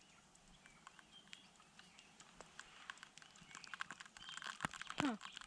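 Faint bird chirping with scattered sharp clicks and taps that grow busier in the second half, and a short falling call a little before the end.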